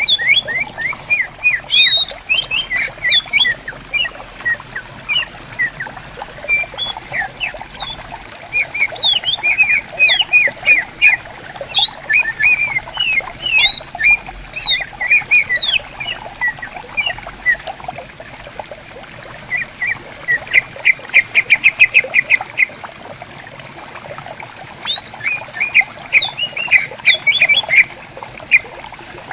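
Green leafbirds (cucak ijo) calling back and forth in quick strings of short whistled notes that sweep up and down, with a fast run of repeated notes about two-thirds of the way in, over the steady babble of a stream.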